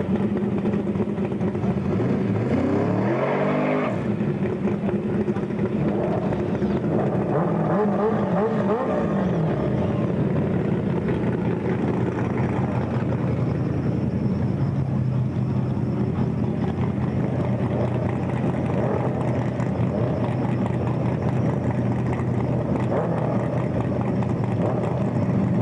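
Drag-racing car's engine revving hard through a tyre-smoking burnout, its pitch climbing twice in the first ten seconds, then settling to a steady idle at the start line alongside a motorcycle's engine.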